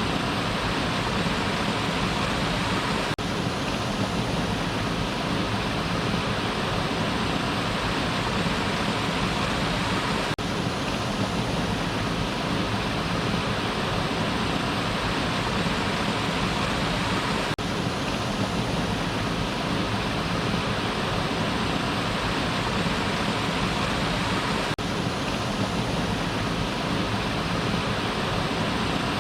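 Waterfall: water falling and rushing in a steady, unbroken roar of white-noise-like sound.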